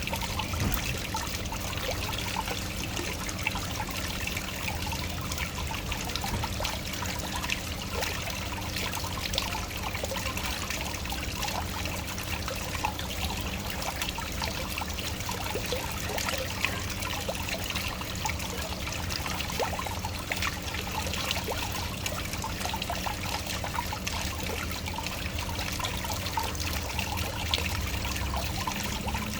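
Waterfall: water falling and trickling steadily, with a constant rush speckled by many small splashes.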